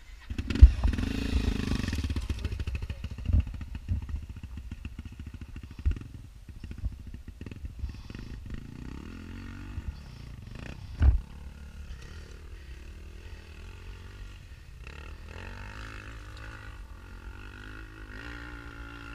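Dirt bike engine riding a rocky trail, revving up in the first couple of seconds and then running at lower revs. Sharp knocks and thumps come as the bike rides over the rocks; the loudest are about a second in and near eleven seconds.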